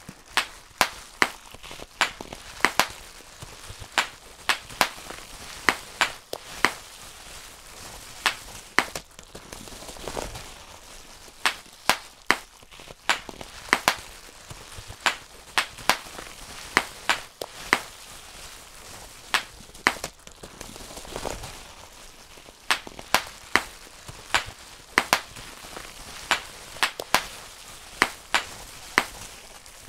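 Bubble wrap being popped by hand, bubble after bubble: sharp, irregular pops, often several in quick succession, with crinkling of the plastic sheet between them.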